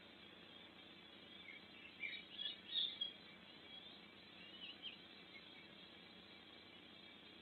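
Quiet forest ambience: a steady faint hiss with a few short, high bird chirps, clustered about two to three seconds in and again near five seconds.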